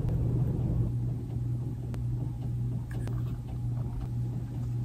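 A steady low hum, with a couple of faint clicks about two and three seconds in as paper strips are handled against a hot glue gun's nozzle.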